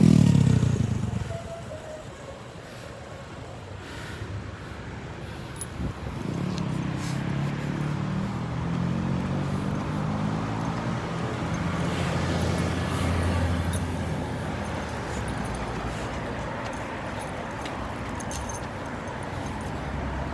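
Street traffic: a motor vehicle's engine hum rises about six seconds in and carries on steadily.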